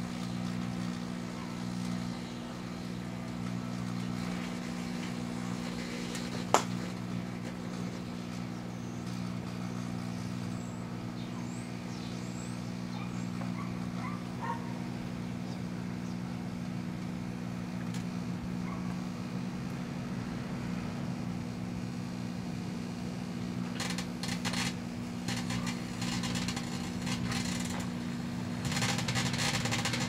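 Two microwave ovens running at once, a Proctor-Silex and a 1987 GE, with a steady low hum. A single sharp snap comes about six and a half seconds in, and bursts of crackling set in near the end as the light bulbs inside arc and burn.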